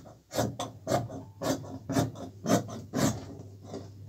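Dressmaking scissors snipping through pajama fabric in a steady run of cuts, about two a second, as the oversized top is trimmed to size along the chest.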